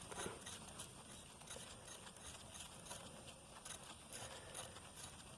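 Faint, scattered light metal clicks and scrapes of a steel head bolt being turned by hand down into a threaded bolt hole in an engine block.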